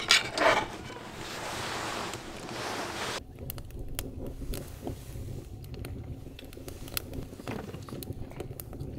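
A steady hiss that cuts off abruptly about three seconds in. After it come sparse, sharp crackles of a wood fire burning in a small wood stove, over a low rumble.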